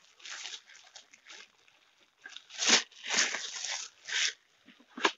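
Plastic packaging bag rustling and crinkling as it is handled, in uneven bursts, with a short sharp click near the end.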